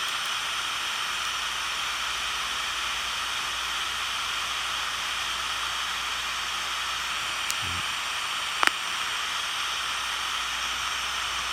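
Steady shortwave static and hiss from the speaker of a Midi MD-9500SD portable digital shortwave receiver, tuned between stations while searching the band. A brief click sounds about eight and a half seconds in.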